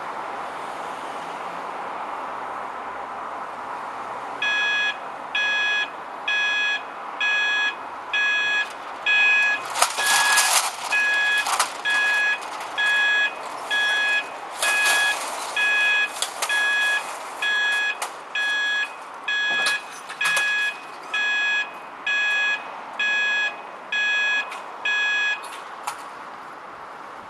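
Level crossing warning alarm beeping about once a second as the automatic barriers are raised. It starts a few seconds in over a steady background rush and stops shortly before the end, with a few sharp knocks in between.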